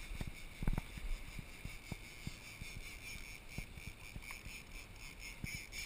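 Steady hum of a sportfishing boat's engines running at low speed, with wind buffeting the microphone in scattered short low thumps.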